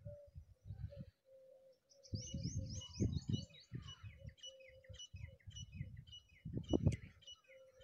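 Birds chirping, with a fast run of short repeated high notes from about two seconds in, over low gusts of wind rumbling on the microphone.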